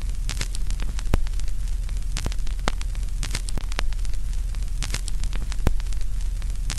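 Steady crackling static over a low hum, with irregular sharp pops and clicks scattered throughout.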